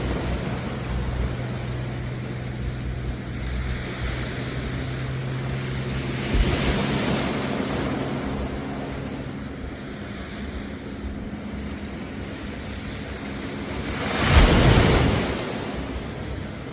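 Sea waves washing onto a beach, with two louder breaking surges, the bigger one near the end. A steady low hum runs under the first half and fades out about halfway.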